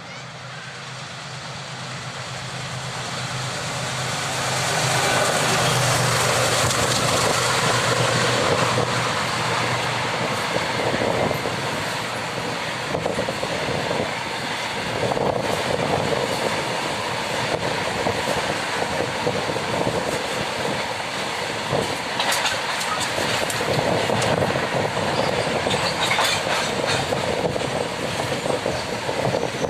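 WDG4G diesel locomotive running at full throttle, growing louder over the first five seconds as it approaches and passes. It is followed by the steady rumble and clickety-clack of loaded freight wagons rolling by.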